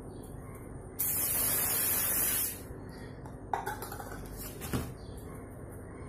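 Spray bottle misting sanitizer onto a parcel: one hiss lasting about a second and a half, starting about a second in. Two light knocks follow a little later.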